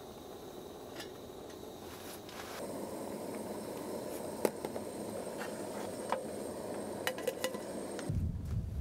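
Aluminium camping pot clinking: a sharp knock about halfway through as an egg goes into the water, then a few light metal clicks as the lid is set on, over a steady hiss from the gas-canister camp stove. Near the end this gives way to a low wind rumble.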